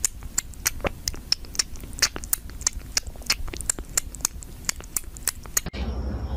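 Cat sucking on a feeding bottle: quick wet smacking clicks, about three or four a second, stopping abruptly near the end.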